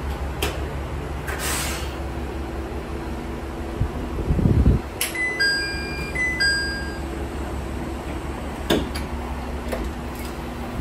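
Diesel railcar's engine running steadily with a low rumble. About four seconds in there is a dull thud, then a short electronic chime of about five notes sounds.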